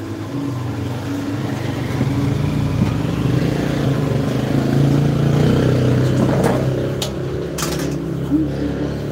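A motor vehicle engine running close by, growing louder toward the middle and easing off again. A couple of sharp clatters come in the second half.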